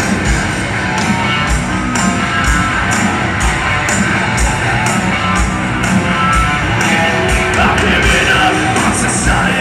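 Live rock band playing over the venue's PA, heard from the audience seats: distorted electric guitars over a steady kick-drum beat, with a singer's voice coming in near the end.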